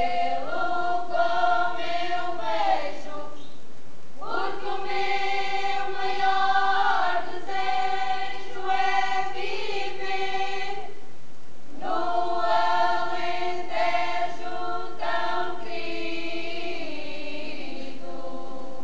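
Folk choir singing unaccompanied in the Alentejo cante style: long phrases of held notes in several voices, with short pauses for breath about four and eleven seconds in.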